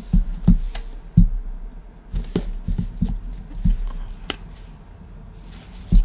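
Cardboard product box and its white inner packaging being handled and unpacked: scattered light knocks, taps and rubbing, busiest in the first four seconds and quieter near the end.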